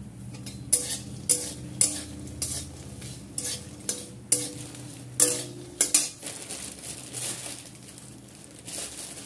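Metal spatula scraping and knocking against a metal kadai as fox nuts (makhana) are stirred in hot oil: about nine sharp strokes in the first six seconds, some leaving a short ring from the pan, then quieter stirring. A light frying sizzle runs underneath.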